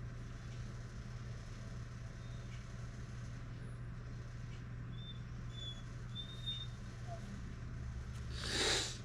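Steady low hum of room noise, with a brief rustle of packaging and a sharp click near the end.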